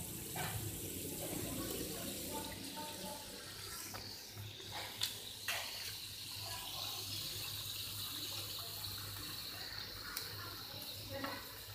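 Flour-coated chicken pieces deep-frying in a wok of hot oil, sizzling steadily, with two sharp clicks about five seconds in.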